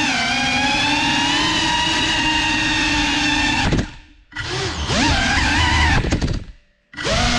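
GEPRC Cinelog 35 cinewhoop drone's brushless motors and ducted propellers whining, the pitch shifting as the throttle changes. The whine drops away almost to silence twice, once a little before the middle and once near the end, and spins back up each time.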